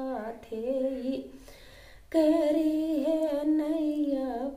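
A woman's solo voice singing the drawn-out closing notes of a Rajasthani devotional bhajan. A short falling phrase and a brief dip are followed, about two seconds in, by one long held note that wavers slightly and falls away near the end.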